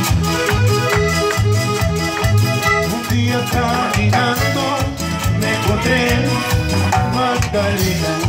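Live cumbia band playing an instrumental stretch: a steady bass beat under keyboard and percussion.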